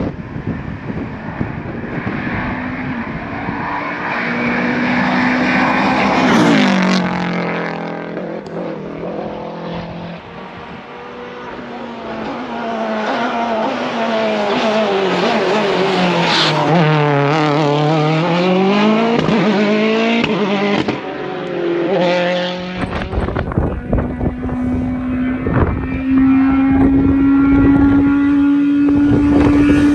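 Rally cars at speed on a tarmac stage, engines revving hard in turn. One car's engine note drops sharply as it lifts and shifts down, another falls then climbs again as it brakes into a hairpin and accelerates away, and near the end another engine note holds and climbs slowly.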